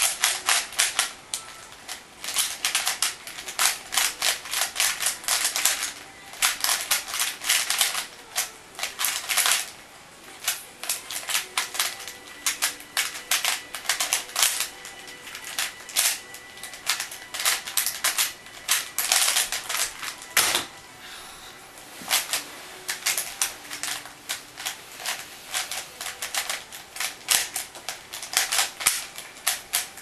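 3x3 Rubik's cube turned at speed: rapid bursts of plastic layer clicks with short pauses between them. One duller knock comes about twenty seconds in, about when the solve's timer stops.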